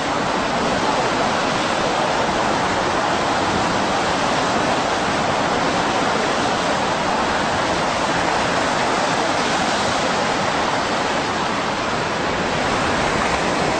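Steady rushing noise of large breaking ocean waves and whitewater, even and unbroken throughout.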